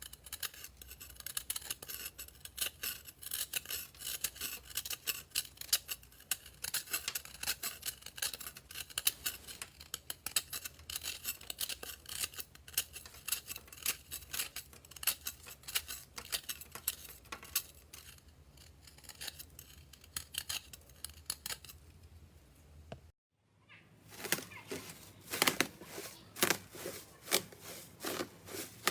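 Slime being squeezed and pressed by hand, giving dense, fast crackling and popping clicks. About 23 seconds in the sound cuts off briefly, and louder, more widely spaced pops and clicks follow.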